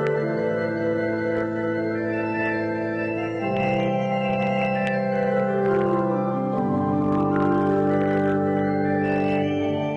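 Pipe organ playing slow, held chords that change about every three seconds.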